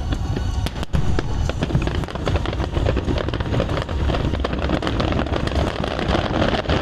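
A fireworks display going off: a dense, unbroken run of bangs and crackles over a deep rumble.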